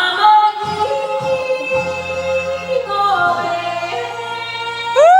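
Enka sung over a backing track: long held vocal notes above a steady bass line. Near the end a note slides up and holds.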